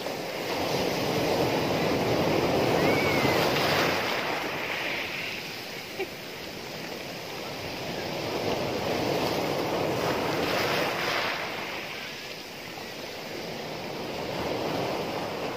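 Sea surf breaking and washing in over rocks and pebbles, rising and falling in three slow surges.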